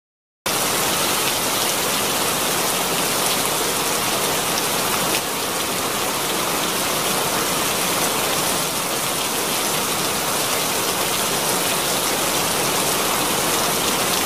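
Heavy rain pouring down in a storm, a dense steady hiss that starts suddenly about half a second in.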